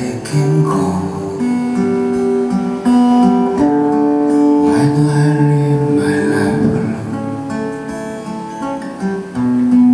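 Acoustic guitar music: strummed chords under a melody of long held notes.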